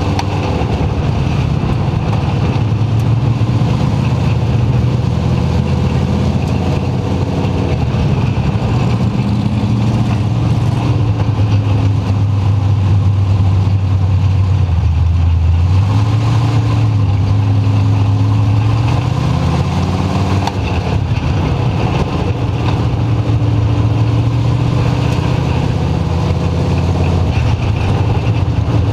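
Dirt-track modified race car's engine heard loud from inside the cockpit, running hard under racing throttle. Its pitch falls and climbs again several times as the driver lifts and gets back on the gas through the turns.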